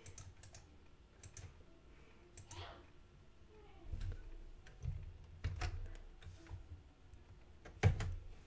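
Irregular computer mouse clicks and keyboard keystrokes, a dozen or so scattered clicks, the loudest about eight seconds in.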